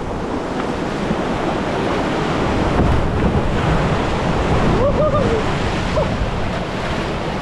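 River rapids rushing steadily, with wind buffeting the microphone. About five seconds in, a brief call rises and falls over the water noise.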